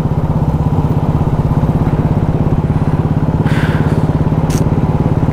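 Motorcycle engine running steadily at highway cruising speed, with a fast, even pulse. There are two short bursts of hiss a little past the middle.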